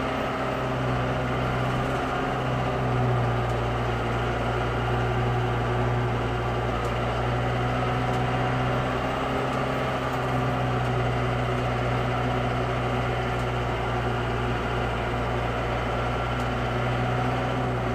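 An engine idling steadily, a constant low hum that does not change in pitch.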